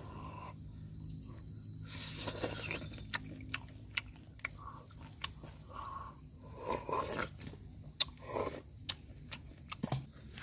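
Close-up eating of cooked snails: wet sucking at the shells and chewing, with many sharp clicks. Two longer sucking sounds come in the second half.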